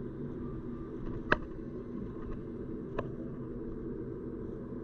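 Car driving at low speed heard from inside the cabin: a steady low rumble of engine and road noise. Two short sharp clicks break through it, about a second in and again near three seconds.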